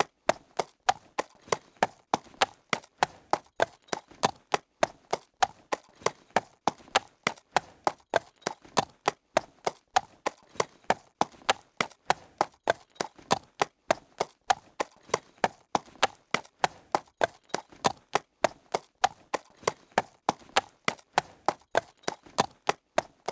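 Horse trotting on solid ground: sharp hoof strikes in a steady, even rhythm, about four a second.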